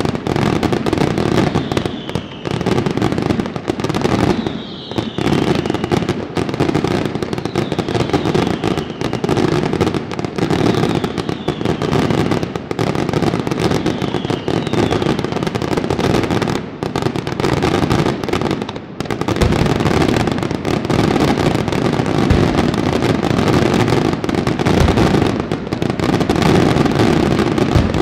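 Daytime fireworks barrage: a dense, unbroken stream of bangs and crackling firecracker salutes. A short falling whistle cuts through every couple of seconds in the first half.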